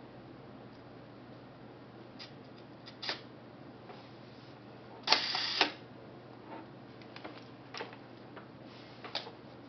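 KMZ Zorki 4 rangefinder camera's cloth focal-plane shutter fired at a slow speed about halfway through: a sharp click, a buzz lasting about half a second, and a second click as it closes. Lighter mechanical clicks from working the camera's top knobs come before and after.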